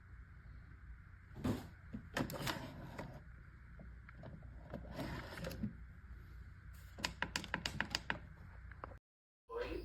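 Irregular clicks and knocks, then a quick run of about ten sharp clicks near the end. The sound cuts out for a moment just before the end.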